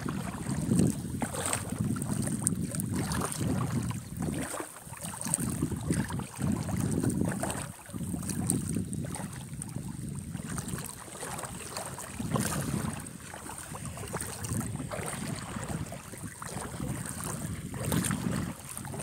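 Wind buffeting a phone's microphone in uneven gusts, over calm, shallow sea water rippling gently at a sandy shore.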